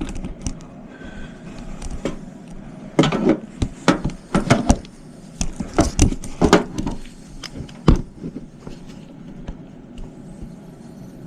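A series of irregular plastic and metal clicks and knocks, densest in the middle: hands working inside an open desktop computer case around the memory slots.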